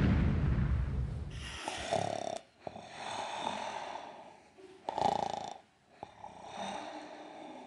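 A deep boom of dramatic music fades out over the first second and a half. A man then snores four times, a rasping in-breath each time, and the third snore is the loudest.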